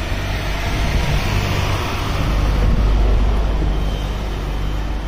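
A road vehicle's engine rumbling close by, its sound swelling to a peak about three seconds in and then easing off.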